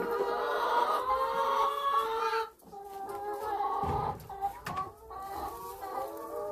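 Domestic hens calling in the coop: long, wavering calls that break off briefly about two and a half seconds in and then go on, with a soft knock around four seconds in.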